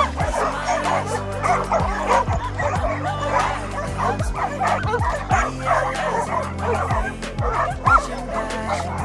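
A crowd of excited dogs barking, yipping and whining over one another, over steady background music.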